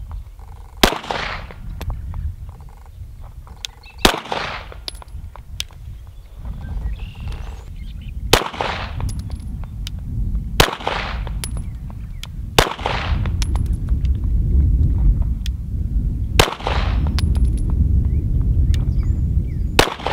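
Glock 34 pistol (9mm) firing seven slow, deliberate single shots, each a sharp crack with a short echo trailing off, spaced two to four seconds apart. Wind rumbles on the microphone, stronger in the second half.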